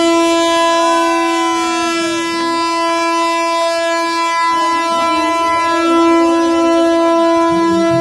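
Vande Bharat train's horn sounding one long, steady blast at a single pitch, held for about eight seconds with a brief dip about four seconds in.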